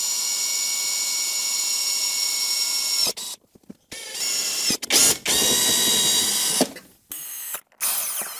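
Cordless drill boring cable holes through the plastic wall of an electrical enclosure. It runs with a steady whine, stops abruptly about three seconds in, then starts again in several shorter runs with brief pauses between them.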